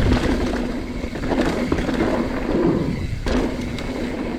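Mountain bike ridden fast down a rocky trail: tyres rumbling, wind buffeting the helmet camera and the frame and drivetrain rattling. A hard thump right at the start, the landing off a wooden kicker jump, and another heavy knock about three seconds in.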